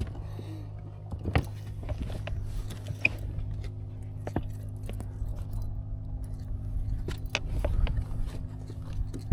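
Steady low hum of a boat motor, with scattered short clicks and knocks from tackle and the boat while a fish is being played.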